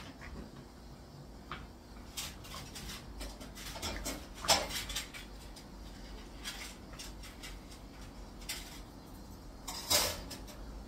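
English bulldog puppy rolling and scrambling on a quilted floor mat: scattered short clicks and scuffs, the loudest about four and a half seconds in and again near the end.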